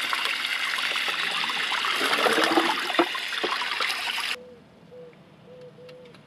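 Running water from a tap pouring and splashing onto a large catfish and into a concrete sink while hands rub the slime off its skin. The rushing stops abruptly about four seconds in.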